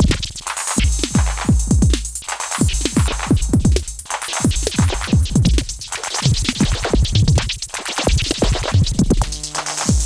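Modular synthesizer playing a fast, uneven pattern of short electronic hits through a Joranalogue Delay 1 short delay, each hit dropping in pitch. The delay time is swept by two LFOs blended together: a slow one carries the pitch down while a fast one adds a quiver.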